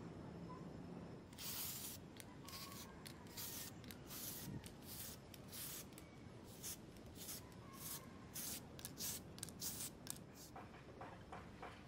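Aerosol spray-paint can hissing in a quick series of short bursts, the first one the longest, starting about a second in and stopping near the end.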